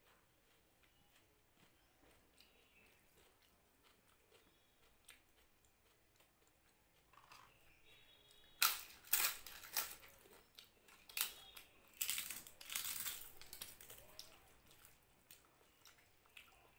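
Crisp papad (papadum) crunching: a series of loud crunches that starts about halfway through and goes on for several seconds. Before that there are only faint, soft eating sounds.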